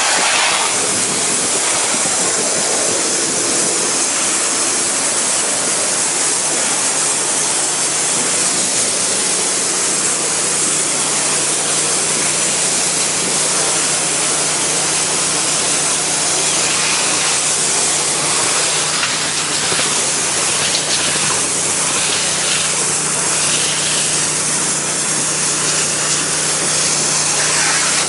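Pressure washer spraying water at low pressure onto wooden deck boards: a steady loud hiss of spray over the low, even hum of the machine running.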